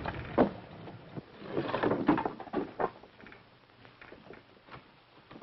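Wooden knocks and creaks of a ladder being handled over a ship's rail. There is a sharp knock about half a second in and a busier stretch of creaking and knocking around two seconds in, then only a few faint clicks.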